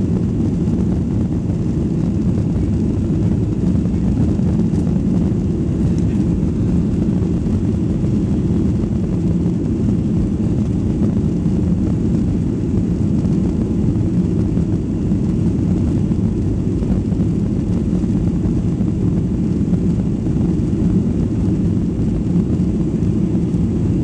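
Boeing 737-800 jet engines and the rumble of the airframe rolling on the runway, heard from inside the cabin: a steady, loud, deep roar that stays even throughout.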